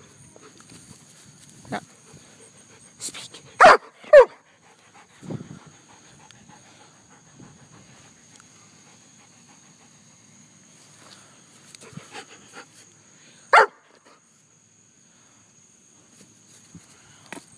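German shepherd barking: two barks about half a second apart about four seconds in, then a single bark about ten seconds later, with soft panting and a few quieter barks in between.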